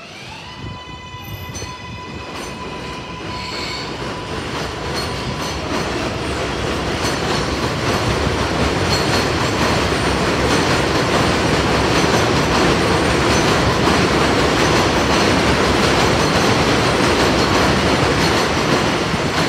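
A New York City Subway 7 train pulls out along the steel elevated structure. Its electric motors whine, rising in pitch over the first few seconds as it accelerates. Then the rumble and clatter of its wheels on the steel viaduct grows steadily louder, heaviest in the last several seconds.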